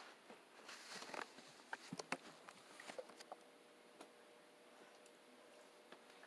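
Faint scattered clicks and light handling noises in the first three seconds, then near silence with a faint steady hum.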